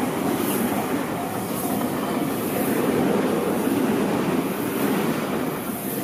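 Tobu Tojo Line electric commuter train passing at speed close by, a steady loud rumble of wheels on rail with a hiss that swells about once a second.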